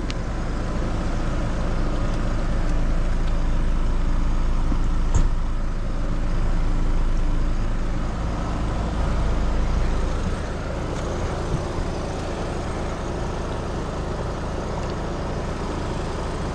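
Air-conditioner outdoor condensing unit running: a steady low compressor hum with the condenser fan's rush, heard close to the cabinet. The low hum is stronger for the first ten seconds or so, then eases, and there is one short click about five seconds in.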